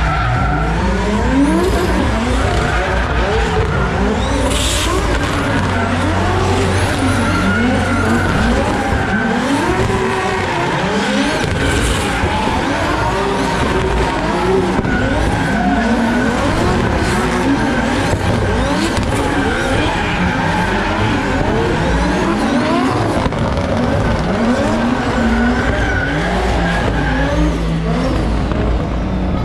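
Several race car engines revving hard through the gears at once, each pitch climbing and then dropping back at a shift, overlapping continuously.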